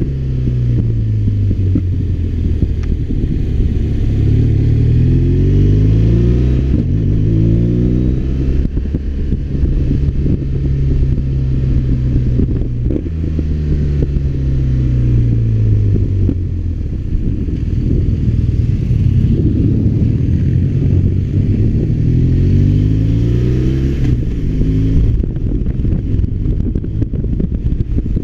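BMW R1200RT's boxer twin engine under way, its note rising and falling several times with throttle and gear changes, with wind rushing over the microphone.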